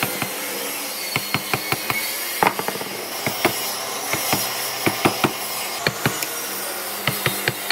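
A quick, irregular run of sharp knocks and taps, several a second, from hand work on wood, over a steady low hum.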